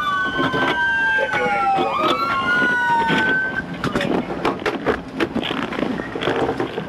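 Two police car sirens wailing together, their pitches sweeping up and down across each other, then cutting off about three and a half seconds in. Scattered clicks and knocks follow.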